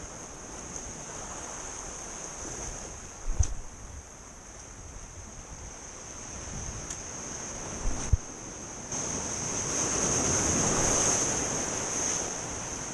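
Sea surf washing in, swelling to its loudest about two-thirds of the way through, over a steady high insect trill, with two short knocks at about three and eight seconds.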